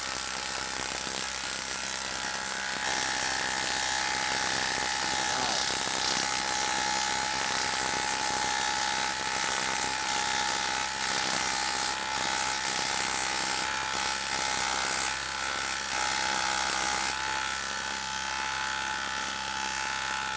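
Makita 12-volt brushless impact driver on its highest speed, hammering without a break as it drives a half-inch, 4-inch lag screw into a log through a socket. It is working hard under heavy load, a rapid steady rattle that is a little louder in the first half.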